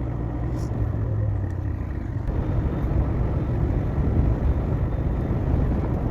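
Motorcycle ride picked up by a lavalier mic inside the rider's helmet: steady low wind rumble over the running engine.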